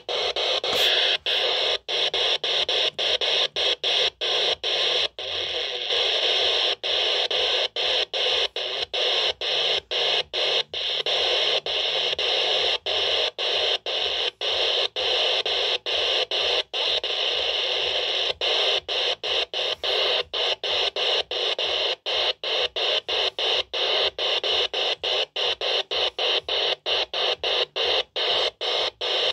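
Handheld Eurosonic Ultimate 80-channel CB radio giving out steady static hiss, cut off by short silences about two or three times a second as it steps through its channels.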